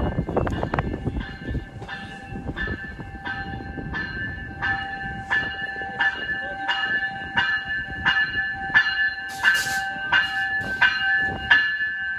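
A bell ringing steadily at about one and a half strokes a second over the low rumble of a train, with a brief hiss near the end.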